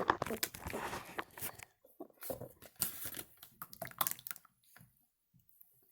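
Slime being squished and pulled by hand: a run of sticky crackles and small wet pops that thin out and stop a little before the end.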